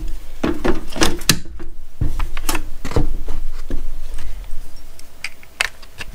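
Irregular clicks and knocks of hard plastic as an M12 battery pack is fitted into a Milwaukee M12 Fuel cordless circular saw and the saw is turned over in the hands.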